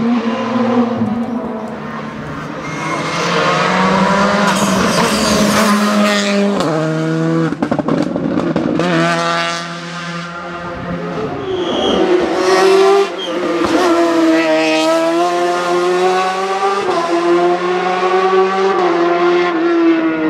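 Sports-prototype race car engine at full throttle up a hill climb. The revs climb and then drop sharply again and again as it shifts through the gears, with a few sharp cracks about seven seconds in.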